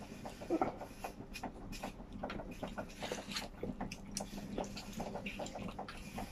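Close eating sounds: chewing and mouth smacks, with fingers tearing meat from a whole grilled chicken on aluminium foil. It comes as an irregular run of small clicks and wet smacks.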